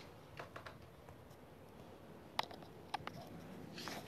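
A few faint, scattered clicks and taps of a paintbrush against a metal watercolour paint tin as blue paint is mixed, with a soft brushing sound near the end.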